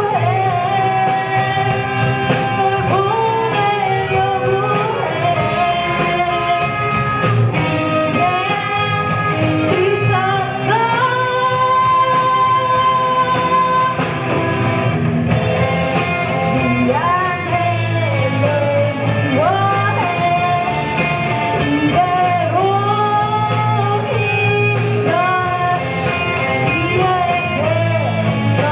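Live rock band playing a song: a sung lead vocal over electric guitar, bass and drums, the voice holding a long note about eleven to fourteen seconds in.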